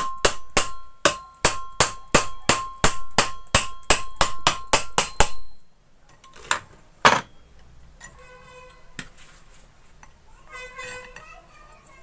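Hammer tapping lightly on the body of a half-horsepower domestic water pump motor, about three quick blows a second with a metallic ring, to seat the part during reassembly. The tapping stops about halfway through, followed by two single, louder knocks.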